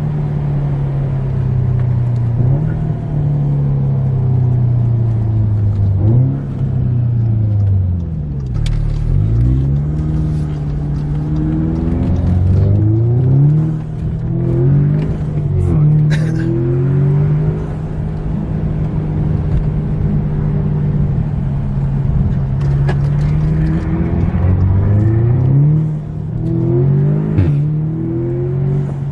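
Audi S3's turbocharged four-cylinder engine with a carbon fibre air intake, pulling hard under acceleration: the engine note climbs in pitch, drops sharply at each gear change, then climbs again, several times over. A few short sharp clicks are heard along the way.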